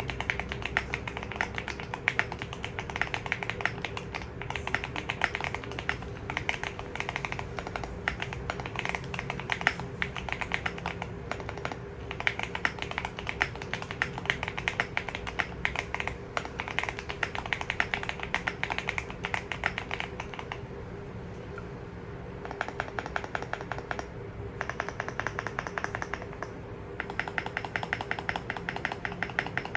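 Keychron Q1 mechanical keyboard with Baby Kangaroo V2 tactile switches on a PC plate, foam- and tape-modded, being typed on continuously: a dense run of muted, creamy key clacks. The typing breaks into a few short pauses about two-thirds of the way through.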